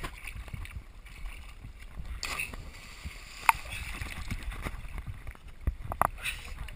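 Water lapping and gurgling against a camera held at the surface of a river pool, with a few sharp knocks in the second half.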